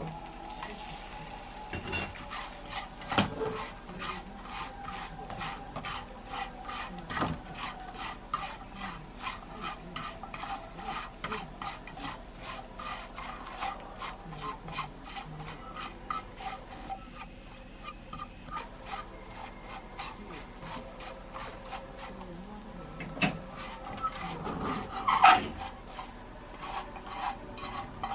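Small dried sardines being stirred and scraped around a pan for gomame, in an even rhythm of about two to three strokes a second. A few louder knocks against the pan come near the start and toward the end.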